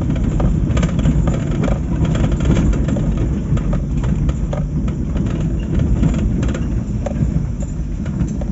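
Steady, loud rumble of a motor vehicle driving, its engine and road noise heard from inside, with scattered small rattles and knocks.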